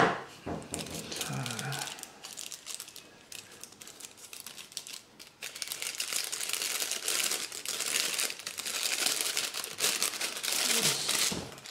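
Clear plastic wrapping crinkling as it is handled and peeled off a pair of sunglasses, busiest from about six seconds in.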